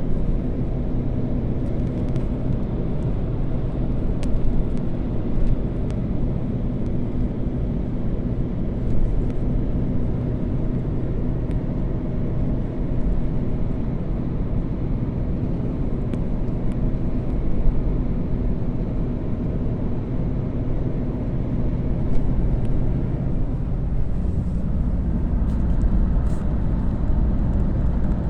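Steady low rumble of a vehicle on the move, engine and road noise with a faint steady hum.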